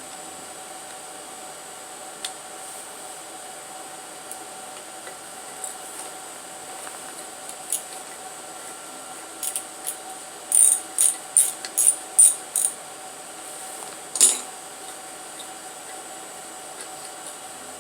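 Socket ratchet clicking as a spark plug is worked loose from the slant six's cylinder head: a run of about seven sharp clicks near the middle, then one louder click a couple of seconds later, over a faint steady hum.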